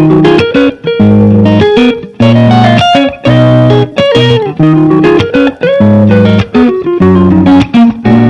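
Intro music led by guitar, loud, with phrases broken by short gaps about once a second.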